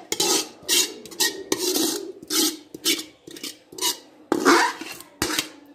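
Metal spoon scraping thick chicken masala out of a steel pot, a run of short scraping strokes at roughly two a second.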